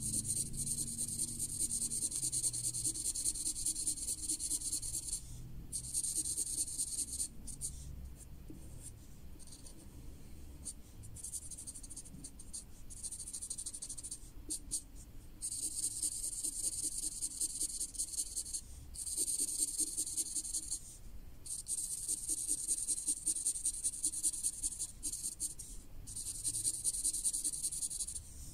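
Broad-tipped felt marker scratching on paper in quick back-and-forth colouring strokes. The strokes come in long steady runs that thin to scattered short scratches in the middle.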